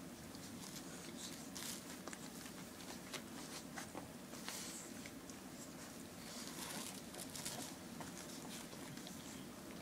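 Faint scattered clicks and short rustles from 17-day-old puppies nursing and the mother dog licking them as they squirm on paper puppy pads, over a low steady hum.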